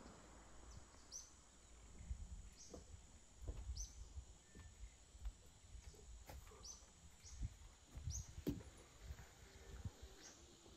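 A small bird repeating a short, high chirp every second or so, heard faintly, with irregular low rumbles underneath.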